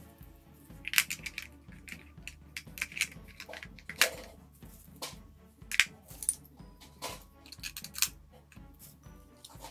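Small plastic doll accessories clicking and clattering as they are handled and put away, in irregular short knocks with a few sharper ones.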